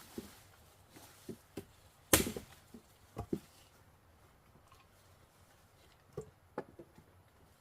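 Chopping: one hard blow about two seconds in, with lighter knocks and taps scattered before and after it.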